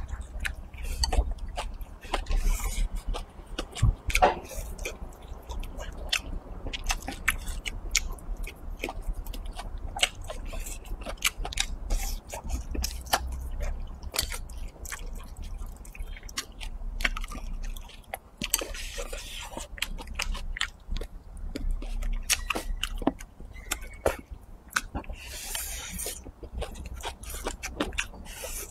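Close-miked chewing with wet, sticky mouth clicks and lip smacks as a person eats braised pig's trotter and rice from chopsticks. A few short hissing noises stand out, near the start, in the middle and toward the end.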